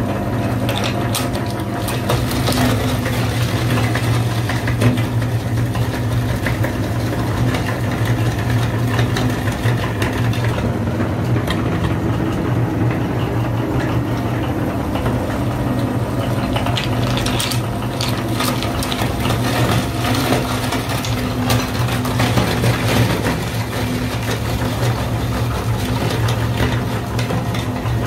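Motor-driven meat grinder running with a steady hum while it crushes hard-candy lollipops, with scattered crackling crunches as the candy breaks up in the grinder.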